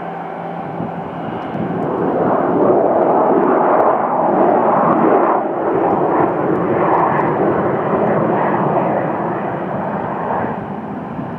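Airbus A319 jet engines running loud as the airliner rolls out on the runway after landing. The noise swells about two seconds in and eases off slowly toward the end.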